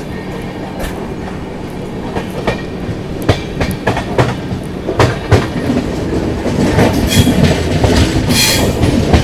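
Double-decker express train's wheels clattering over rail joints and junction points: irregular clicks and knocks over a steady rumble, growing busier and louder toward the end.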